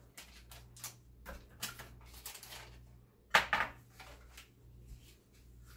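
Small kitchen handling noises as butter is cut with a knife and set into a glass mixing bowl: light clicks and rustling, with two sharper knocks a little over three seconds in. A steady low hum sits underneath.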